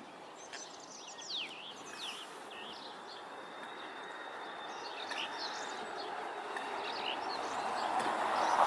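Birds chirping, with many quick, high, sweeping chirps in the first half, over a rushing outdoor noise that grows steadily louder toward the end.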